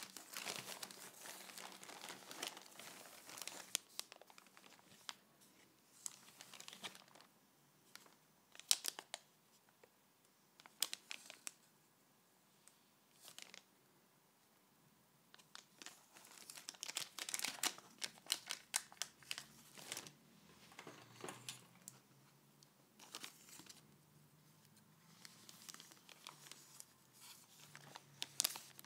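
Plastic packaging crinkling and tearing in the hands as a plastic courier mailer is opened and the small plastic bag inside is handled. It comes in irregular bursts of crackle with short quiet pauses, busiest at the start and again around the middle.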